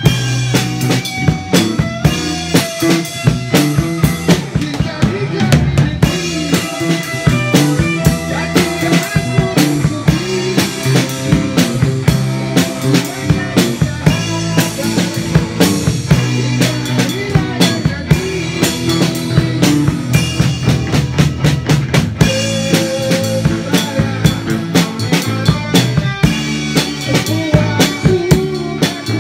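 Live band rehearsal, with a drum kit played loud and close: a steady beat of kick, snare and cymbals. Electric guitar plays underneath, and a man sings into a microphone.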